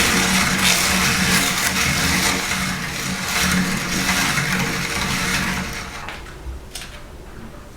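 Electric meat grinder running with a steady motor hum and a dense crunching as dry food is ground through it. It dies away about six seconds in, leaving a few clicks.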